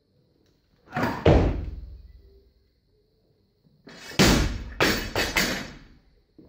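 A heavy thud about a second in as the barbell snatch is caught overhead. About four seconds in, the loaded barbell with bumper plates is dropped onto the rubber platform mat: one loud impact, then three quicker bounces with the plates clattering, dying away.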